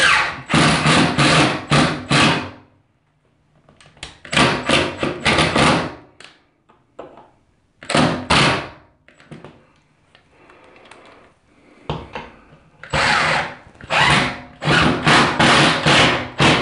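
Cordless drill driving screws into wall studs, run in short repeated trigger bursts in several clusters, with pauses between.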